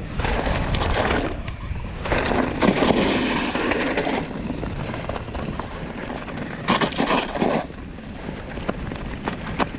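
Trek Slash mountain bike being ridden: knobby tyres rolling and scrubbing over dirt, dry grass and snow in rough surges, loudest about two to four seconds in, with wind buffeting the action camera's microphone throughout.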